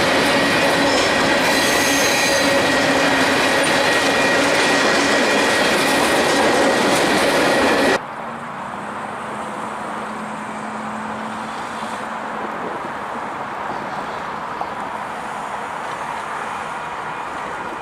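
Train cars rolling past close by, a loud rumble of wheels on rail with steady wheel squeal. About eight seconds in it cuts suddenly to a quieter, more distant train rumble.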